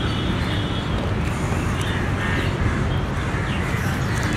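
Outdoor background noise, a steady low rumble, with a few short bird calls over it.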